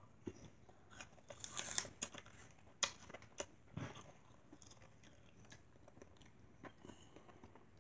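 Faint crunching and chewing of crisp apple: short crackly bites in a few clusters, loudest about one and a half to two seconds in, then sparser clicks as the chewing goes on.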